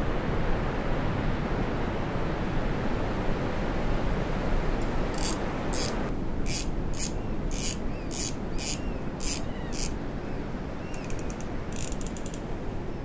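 Shimano Twin Power spinning reel's drag knob clicking as it is turned off the spool: about nine sharp single clicks, roughly two a second, starting about five seconds in, then a quick run of clicks near the end, over a steady hiss.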